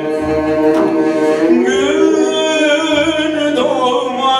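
A Turkish folk song sung with instrumental accompaniment, the voice holding and sliding through long ornamented notes between lyric lines.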